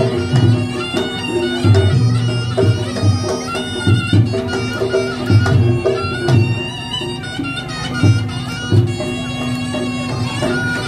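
Live Reog Ponorogo gamelan music: a slompret, a reedy double-reed shawm, plays a melody over a held low tone, with repeated drum and gong strokes beneath.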